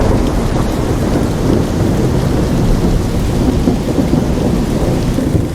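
A steady, dense rumbling noise, heaviest in the low end. It starts abruptly and cuts off suddenly near the end.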